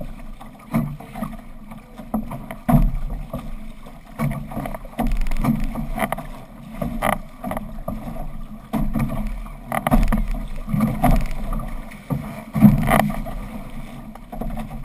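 Water splashing and rushing along the hull and outrigger float of a six-person outrigger canoe under paddle, coming in uneven surges every second or so as the crew strokes.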